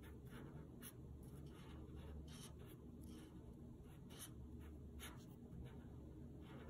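Broad-tip black marker scratching faintly on paper in short, irregular strokes, about two a second, as an area is filled in with ink.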